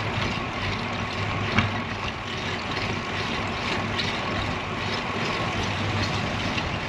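Steady wind rush over a bicycle-mounted microphone while riding, mixed with road noise and a low steady hum, with a brief click about a second and a half in.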